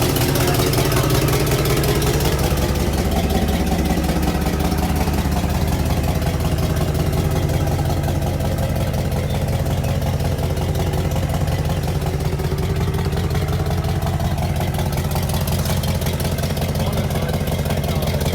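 Holden 253 V8 engine of an early-1980s VH Commodore, carburettor freshly primed, running steadily at idle after about 25 years of sitting.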